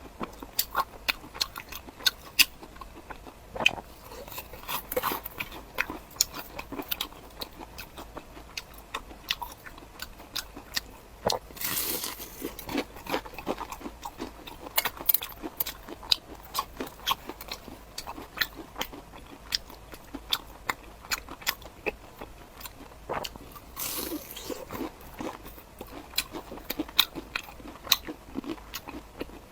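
Close-miked chewing and biting of crunchy food: many irregular crisp crunches and mouth clicks, with a couple of longer crackling bites.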